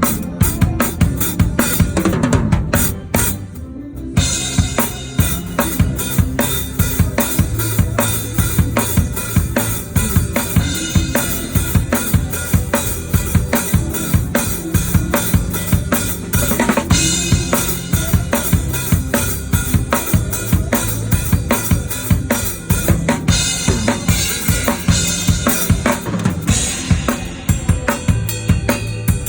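Drum kit played in a full band: kick drum, snare and cymbals driving a worship song, with steady bass notes from the band underneath. The cymbals drop out for a moment about three seconds in, then the kit comes back with a bright cymbal wash.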